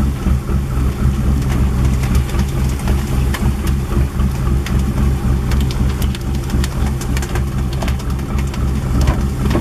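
A fishing boat's engine running steadily with a low hum, with scattered sharp ticks and splashes of water over it.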